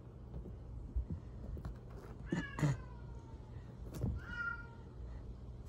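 A cat meows twice, about two and a half seconds in and again about four seconds in, the first call falling in pitch. A few soft knocks come from a kitten moving about on the couch cushions.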